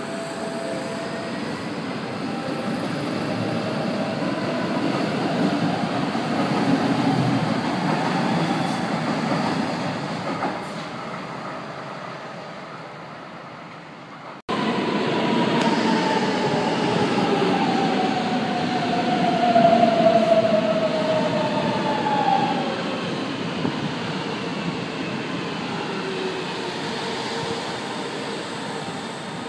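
São Paulo Metro electric trains. The first rumbles past on its wheels, swelling and then fading. After a sudden break a second train comes in, its motors whining down in pitch over several seconds as it slows beside the platform.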